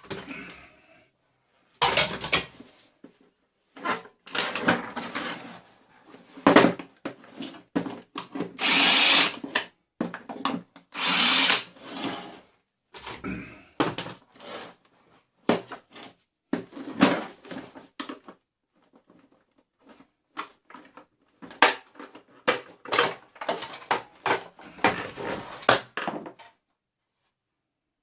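Power drill running in short bursts of about a second, between many sharp knocks and clicks of parts being handled during dismantling of a vacuum cleaner.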